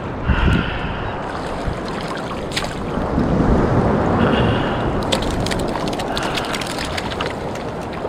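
Wind on the microphone over sloshing surf water, with splashing as a small shark on the line thrashes at the surface and is scooped into a mesh landing net. From about five seconds in comes a quick run of sharp splashes and crackles.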